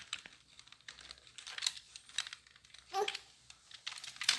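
Computer keyboard keys being struck unevenly by a baby, a scatter of irregular clacks with no typing rhythm. A brief pitched sound about three seconds in.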